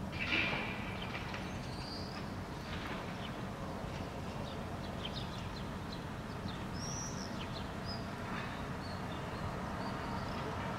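Steady low rumble of distant city traffic, with small birds chirping briefly now and then. A short louder sound comes just after the start.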